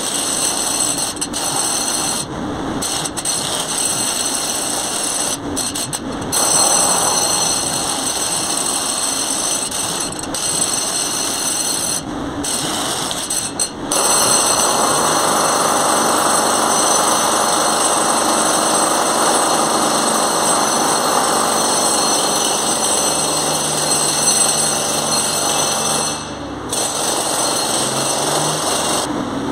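JCB 803Plus mini excavator working, its engine and hydraulics running as it digs and swings the bucket. About halfway through the engine settles into a steady, even note, which rises near the end as the machine turns and moves off.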